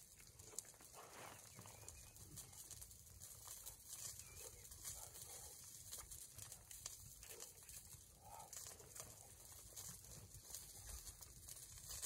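Near silence: faint outdoor ambience with a few soft, short sounds in the middle of the stretch.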